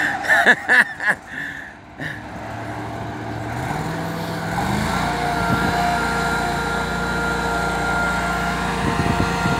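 A job-site machine engine speeds up about four seconds in, its pitch rising, then runs steadily at the higher speed.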